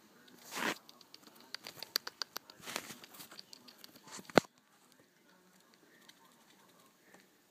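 Pet rats scrambling on a woven mat, their claws scratching and ticking in a quick, irregular run of small clicks and scuffs, ending with one sharp knock about four and a half seconds in.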